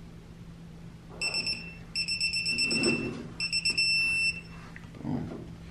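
Electronic torque wrench beeping three times, a high steady tone, the first beep short and the other two about a second each. The beeps signal that a cylinder-head bolt has reached the wrench's set torque.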